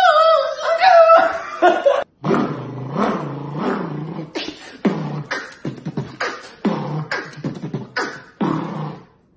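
Human beatboxing: about two seconds of a high, wavering vocal whine, then a rhythmic beat of low hummed bass notes and sharp, snare-like mouth clicks that stops just before the end.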